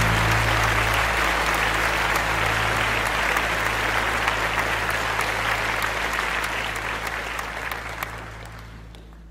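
Live audience applauding at the end of a song, a dense patter of clapping that fades out near the end, over a low steady hum.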